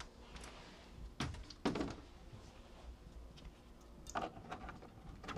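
Knocks and bumps of handling, as a wall mirror is lifted down and a small metal wall-safe door behind it is opened. There is a close pair of knocks a little over a second in, the second the loudest, and another knock about four seconds in.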